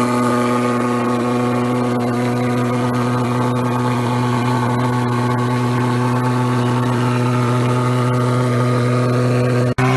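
Backpack thermal fogger's pulse-jet engine running at a steady pitch, an even buzzing drone. It breaks off for an instant near the end.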